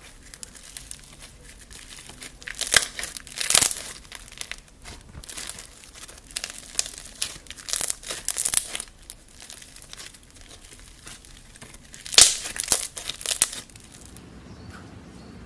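Thick, bumpy slime squeezed, folded and pulled apart by hand, giving crackling, crinkly crunches in several bursts. The sound goes quieter near the end.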